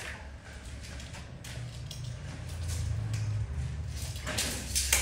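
Steady low hum with light clicks of a steel tape measure being worked against floor tiles; near the end a short rattling scrape ending in a sharp click, as the tape's blade runs back into its case.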